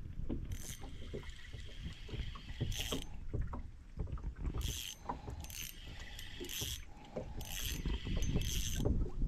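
Spinning reel being cranked in about seven short spurts, each a brief whir of its gears, over a steady low rumble with small knocks.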